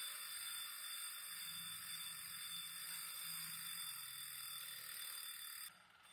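Wahoo KICKR Core direct-drive smart trainer and the bike's chain drivetrain whirring steadily while pedaled, with a faint high whine; the trainer is still super quiet after 200 hours of use. The sound drops away suddenly near the end.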